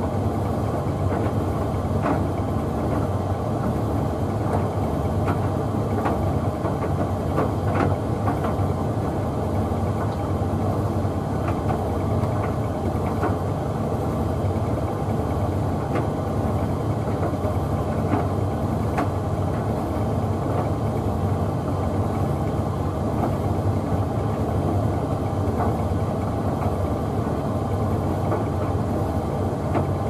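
Hoover Visiontech Infinity VTV581NC tumble dryer running its Rapid 40 drying program: a steady motor and fan hum as the drum turns the laundry, with occasional light clicks.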